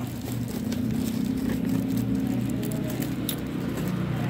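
Paper wrapping and packing tape crinkling and crackling as a potted plant is picked out of its packing, over a steady low engine-like hum.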